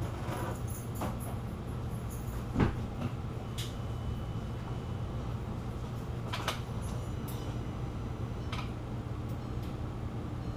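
Scattered clicks and knocks over a steady low hum, with one sharper thump about two and a half seconds in and another about six and a half seconds in.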